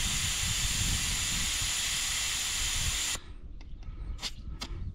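Air hissing out of a Jeep tire's valve stem as the tire is aired down by hand, a loud steady hiss that cuts off suddenly about three seconds in, followed by two short clicks.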